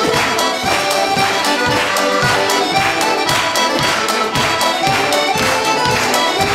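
Bugari piano accordion playing a traditional dance tune, quick melody notes over a steady bass beat.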